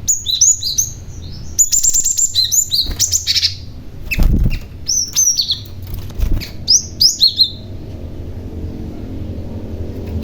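Young cinereous tit (glatik batu) calling in bursts of rapid, high chirps that each drop sharply in pitch, busiest through the first seven seconds and then falling quiet. Two dull thumps come about four and six seconds in.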